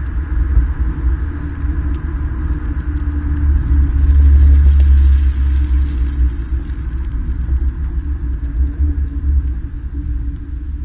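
Borla aftermarket exhaust on a 2013 Hyundai Veloster Turbo's 1.6-litre turbocharged four-cylinder, giving a deep steady rumble while the car is driven. The rumble swells to its loudest about four seconds in, then eases off.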